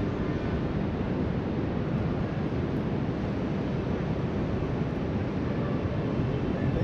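Ocean surf breaking along a beach, mixed with wind on the microphone: an even, steady noise with no distinct events.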